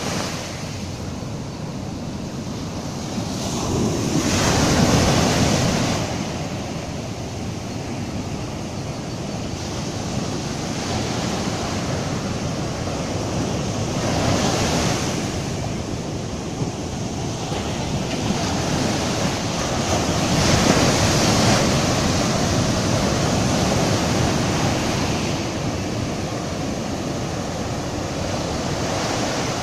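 Surf washing up a sandy beach: foamy swash rushing in over the sand and draining back. The steady wash swells into a louder rush three times.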